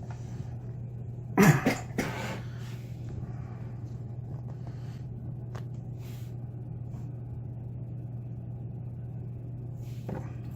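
Small hard objects handled on a desk: a quick cluster of sharp clacks about a second and a half in, then a few faint taps, over a steady low hum.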